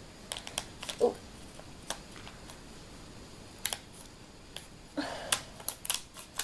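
Scattered sharp clicks and a brief crinkle from handling a LEGO minifigure foil blind pack and its small plastic parts, with a cluster of clicks near the end.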